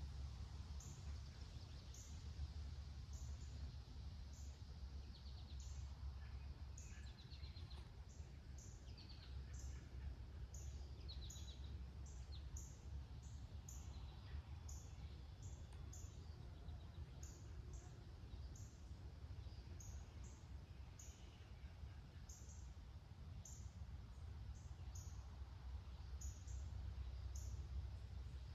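Faint outdoor ambience of small birds: short high chirps repeating about once or twice a second, with a few brief trills in the first half, over a steady low rumble.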